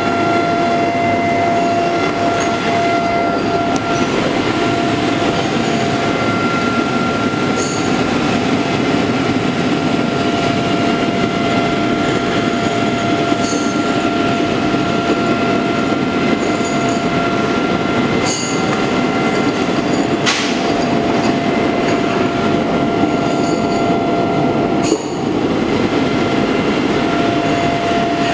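Factory machinery running steadily in a steel file works, a loud, continuous mechanical din with a steady whine through it. Sharp metallic clicks stand out every few seconds.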